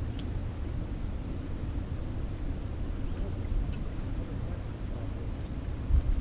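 Steady low rush of water flowing below a dam spillway, with a constant high-pitched insect drone over it. A short low thump comes near the end.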